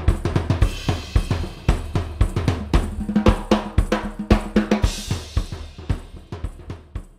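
Drum kit played as a busy groove of bass drum, snare, toms and cymbals. The bass drum is fitted with a Revolt Gravity Crunchmaster brass muffler carrying a felt damper and tambourine jingles. The playing fades out near the end.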